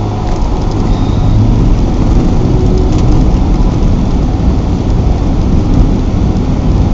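Car driving over a rough desert sand and gravel track, heard from inside the cabin: a loud, steady rumble of tyres on the loose surface with the engine underneath.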